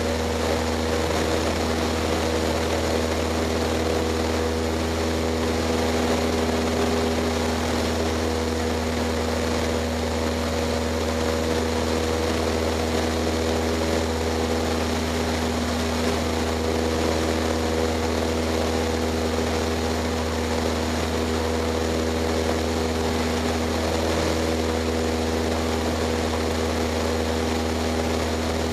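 Cessna 152's four-cylinder Lycoming O-235 engine and two-blade propeller running steadily at a constant pitch in flight, heard from inside the cockpit.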